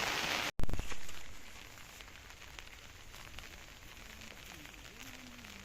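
Heavy rain hissing steadily, cut off abruptly about half a second in, followed by a brief loud thump. After that comes a much quieter, light crackly patter of rain and drips.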